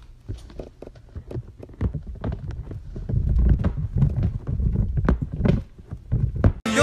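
Irregular knocks and thumps, some with a deep thud, coming thicker and louder in the middle. Near the end they cut off abruptly as yodelling music begins.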